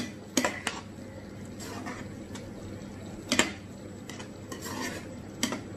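A cooking spoon knocking against the pan while stirring a thick paste-and-mushroom mixture: five or so sharp clinks spread out, with softer scraping between them.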